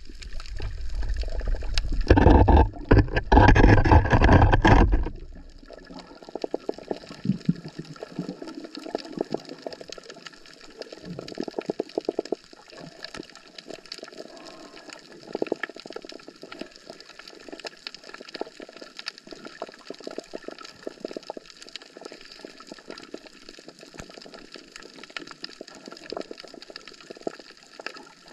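Water splashing and gurgling, loud for the first few seconds, then a fine steady crackle of small clicks and bubbles.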